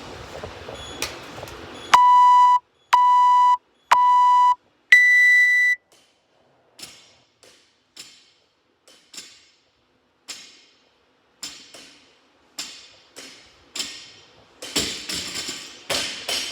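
Workout timer's start countdown: three short beeps about a second apart, then a longer, higher beep that signals the start. After it comes a run of irregular knocks and clanks, coming faster near the end.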